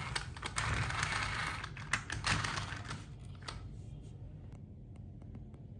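Small hard plastic toy parts clicking and rattling rapidly for about three seconds, then a few scattered single clicks.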